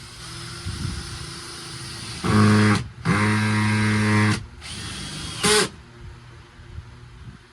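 A power drill run in three trigger pulls: a short burst, a longer one of about a second and a half, then a brief blip, its motor holding one steady pitch.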